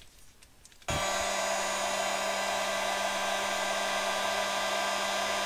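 Electric heat gun switched on about a second in and running steadily: a rush of blown air with a constant motor hum. It is blowing hot air onto the battery's BMS temperature sensor to trip the high-temperature charging cutoff.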